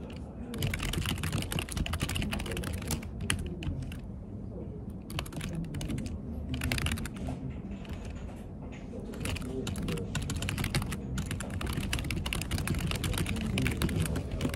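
Fast, continuous typing on a computer keyboard: a dense stream of key clicks with short pauses between bursts.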